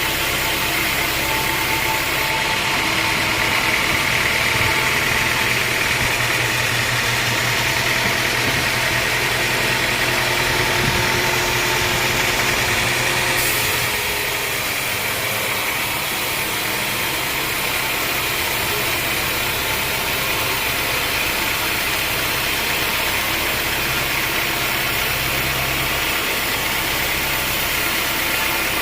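Homemade band sawmill running: a steady engine drone with a band saw running, the higher part of the sound dropping a little about halfway.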